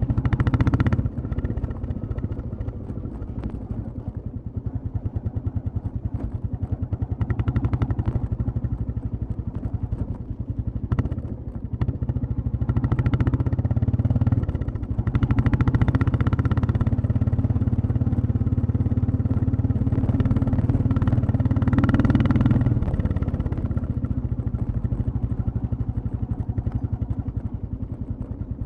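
Royal Enfield Classic 350's single-cylinder four-stroke engine and exhaust running while riding, the note swelling and easing as the throttle opens and closes. It is loudest and steadiest for several seconds around the middle, then eases off a little after about 23 seconds.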